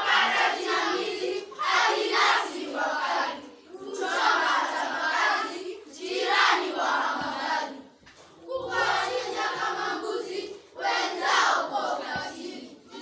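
A group of children's voices in unison, loud phrases of about one and a half to two seconds broken by short pauses, like a class chanting or singing together.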